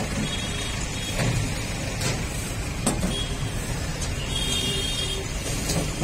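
Steady roadside traffic noise, with a couple of sharp knocks about two and three seconds in.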